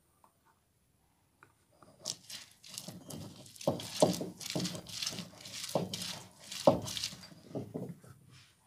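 Shallots and green chillies being crushed on a flat stone grinding slab with a hand-held stone: an irregular run of knocks and wet scrapes, about two strong strokes a second, starting about two seconds in.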